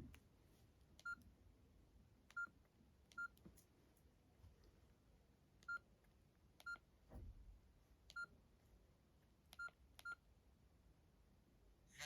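Nokia E65 keypad tones: eight short, faint beeps of one pitch at irregular intervals as the phone's keys are pressed, each with a light click.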